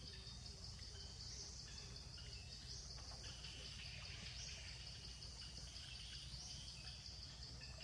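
Faint outdoor ambience: a steady high-pitched insect drone with birds chirping at intervals.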